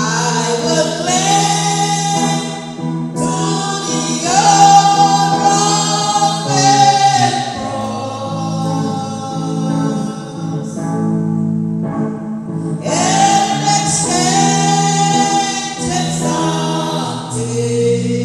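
A woman singing a gospel song through a microphone in long, held phrases over steady sustained chords.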